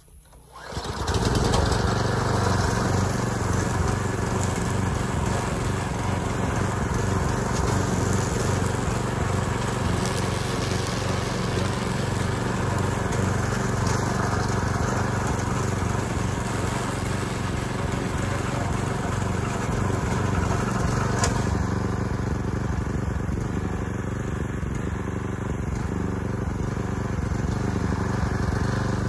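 Gas-powered walk-behind wheeled string trimmer running steadily as it is pushed through thick, tall grass, its small engine humming at an even pitch and level.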